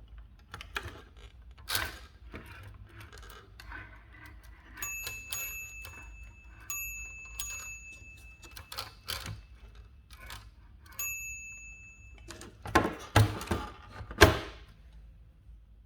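Margin bell of a 1933 Olivetti MP1 portable typewriter ringing with a clear ding several times, from about five seconds in to about twelve seconds in. Clicks and clacks of the typewriter's mechanism sound between the rings, with two loud clacks near the end.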